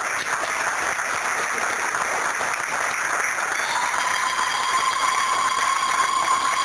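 Audience applauding steadily. About four seconds in, a high, long-held tone rises over the clapping and keeps going.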